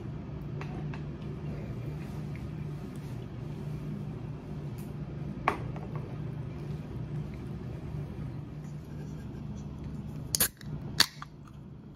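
A steady low hum, then near the end the pull-tab of an aluminium sparkling-water can is cracked open: two sharp clicks about half a second apart.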